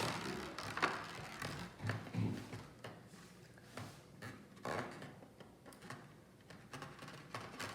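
Irregular light clicks and knocks from handling a small plastic coin-spinner toy.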